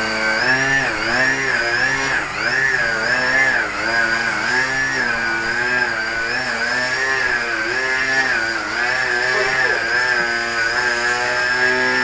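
Car engine held at high revs, its pitch rising and falling over and over, about one and a half times a second.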